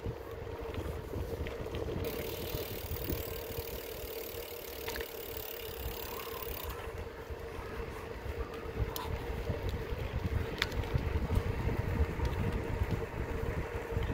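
Wind rumbling on the microphone outdoors, over a steady mid-pitched hum. A high hiss comes in about two seconds in and stops about seven seconds in.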